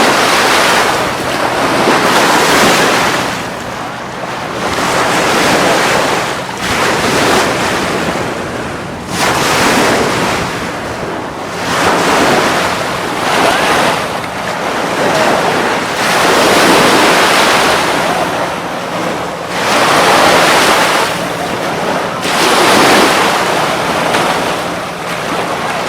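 Atlantic surf breaking and washing onto the beach: loud, even rushing noise that swells and falls every two or three seconds, with wind buffeting the microphone.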